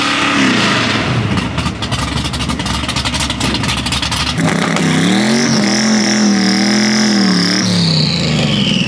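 Drag-race car making a pass at full throttle. First comes a loud, ragged engine sound, then about four seconds in a steady engine note with a high whistle that slides down near the end as the car comes off the throttle.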